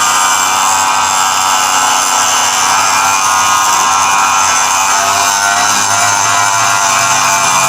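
Cordless angle grinder with a thin cutting wheel cutting through scrap metal: a steady, loud, high-pitched grinding without a break.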